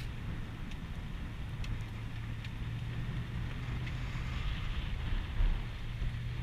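Car driving slowly over a dirt and gravel road: a steady low engine hum over tyre and road rumble, with a few light clicks and a dull bump about five seconds in.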